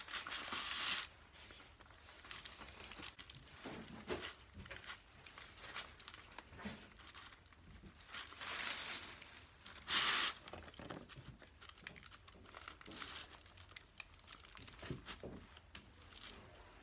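Moss rustling and crinkling as it is pressed onto a chicken-wire form and bound on with binding wire, with two louder stretches of rustling, one at the start and one about eight to ten seconds in, and a few small knocks.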